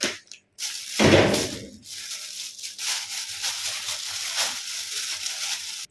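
Kitchen handling noise as green chillies are picked out: a steady rustling hiss with a louder rustle or bump about a second in. It stops abruptly.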